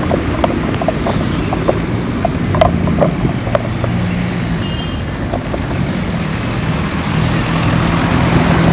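Street traffic noise, with a motor vehicle's engine running steadily and faint short ticks scattered over it.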